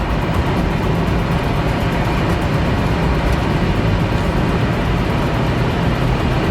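Steady rush of wind and tyre noise from an electric hypercar running flat out at around 200 mph on a drag strip, with no engine note and no change in loudness.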